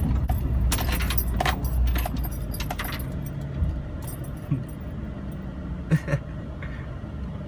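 Car interior rattling and clattering over a low rumble as the car bumps across a rough grass field; the rattles ease off after about three seconds.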